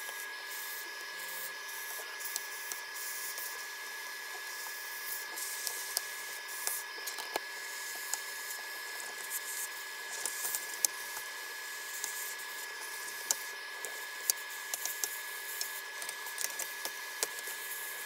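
Hot air rework station blowing steadily, with a steady high whine, while scattered sharp clicks and ticks come and go as the keyboard plate is pried off its heat-softened plastic stakes.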